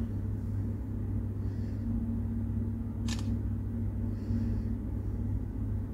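Tablet camera's shutter sound, one short click about three seconds in, as a selfie is taken on the Samsung Galaxy Tab S9+, over a steady low hum.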